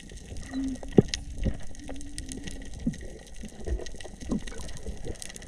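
Water gushing and gurgling, with scattered sharp clicks throughout and a louder knock about a second in.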